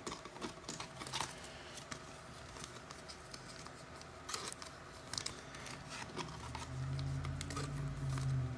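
Faint handling of trading cards and pack wrappers: scattered small clicks and soft rustles, with a low hum for the last two seconds or so.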